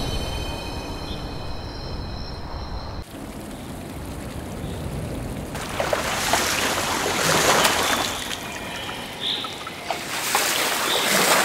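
Water lapping and trickling, with rushing swells of noise about six and ten seconds in. High steady tones sound over it for the first three seconds, then stop abruptly.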